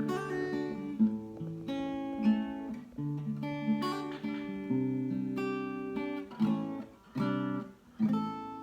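Acoustic guitar music: strummed chords, changing every second or so.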